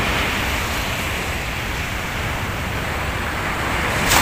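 Steady rush of surf on a beach, mixed with low wind rumble on the microphone. There is a single sharp click near the end.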